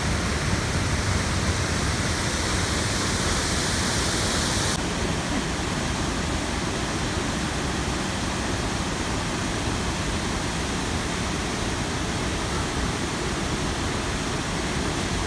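Floodwater pouring through the open spillway gates of a concrete gravity dam: a steady, dense rush of falling water. The high hiss in it drops a little about five seconds in.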